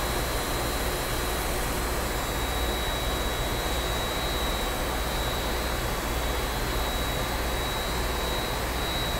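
Park Industries Voyager CNC bridge saw running steadily, its arbor spinning the blade with the cooling water on, with a steady high whine over a low rumble.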